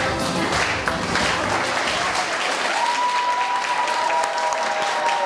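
Audience applauding steadily, as the closing song's music dies away in the first second; a faint held musical tone sounds over the clapping from about halfway.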